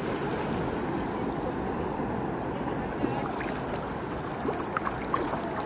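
Shallow sea water sloshing steadily around a swimmer moving to leave the water, with a few light splashes near the end.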